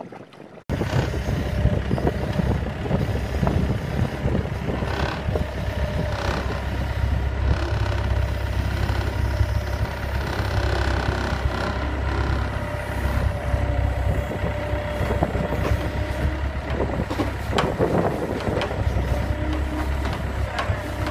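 Engine of a compact wheeled loader running steadily close by, starting abruptly under a second in, as the loader lifts a downed cow by a hip clamp. A few knocks near the end.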